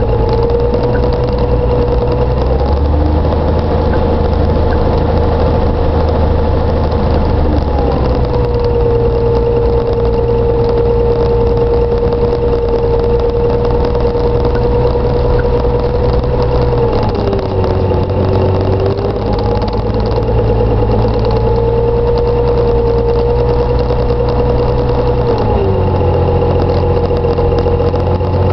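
Jabiru 3300 six-cylinder air-cooled aircraft engine and propeller running, heard from inside the Thorp T-211's cockpit. The steady drone shifts pitch a few times as the engine speed changes: it drops about two-thirds of the way through, rises again, and drops again near the end.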